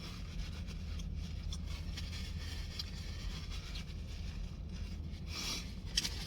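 A person chewing a burger with small rustling and scraping noises over a steady low hum, and a couple of brief louder clicks near the end.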